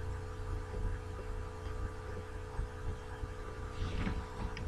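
Steady low electrical hum with a slight pulsing, and faint steady higher tones above it; a faint brief rustle about four seconds in.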